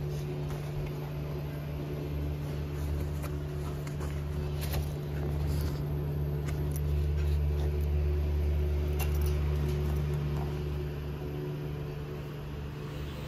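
Steady low mechanical hum, a little louder in the middle stretch, with a few faint clicks.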